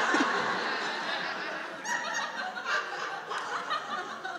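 An audience laughing, the laughter gradually dying away.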